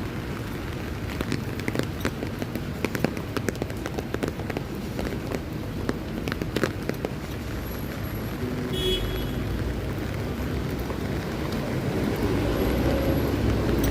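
City street in steady rain: a constant hiss of rain with scattered sharp drips and ticks in the first half. A brief high beep about nine seconds in, then a vehicle's low rumble that grows louder toward the end.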